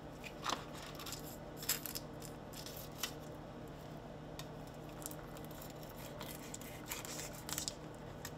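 Kitchen knife cutting through fish fillets on a cutting board: short, irregular scrapes and taps, with a few louder ones about half a second in, near two seconds in and near the end, over a steady low hum.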